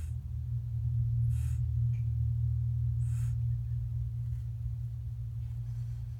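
A steady low hum, with two brief soft hissing rustles about one and a half and three seconds in.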